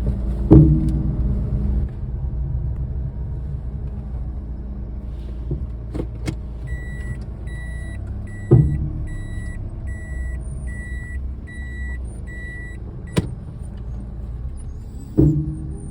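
Daihatsu Esse being driven, with a steady low road rumble broken by three loud knocks a few seconds apart, plus a few lighter clicks: the abnormal knocking from the car's suspension. In the middle, a high beep repeats about every 0.8 s, eight times.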